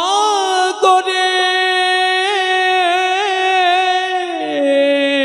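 A single voice singing one long drawn-out note with small wavering ornaments, sliding down to a lower note near the end.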